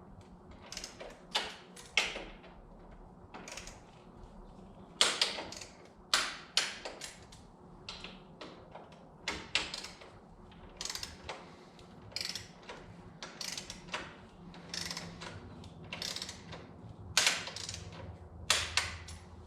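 Ratcheting torque wrench clicking in irregular runs of sharp clicks as bolts are torqued down to 20 newton metres.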